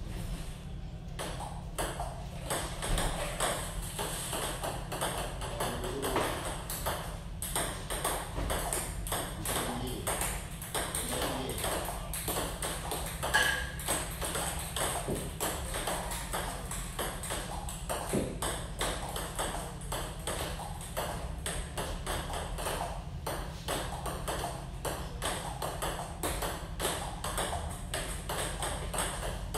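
Table tennis ball clicking off rubber-faced paddles and bouncing on the table in a continuous practice rally: a steady run of light clicks, a few a second.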